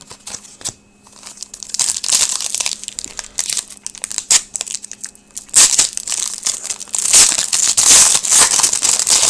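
Trading card pack wrappers being crinkled and torn open by hand, a dense run of crackling that starts about two seconds in and grows louder and busier in the second half.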